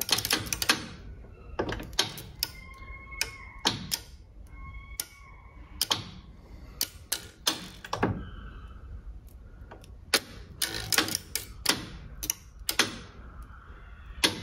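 Contacts on a tram's VAMBAC motorised rotary resistance switch clicking irregularly, about twenty sharp clicks in all, as the magnetically operated contacts snap down and release. A brief faint whine sounds twice a few seconds in.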